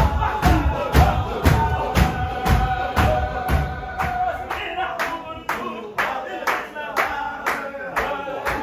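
Men's voices chanting a Sufi zikr together, one note held long in the first half, over a steady beat of hand claps about twice a second.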